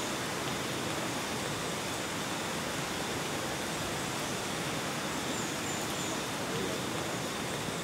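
Steady, even hiss of tropical rainforest ambience, with a few faint high chirps about five and a half seconds in.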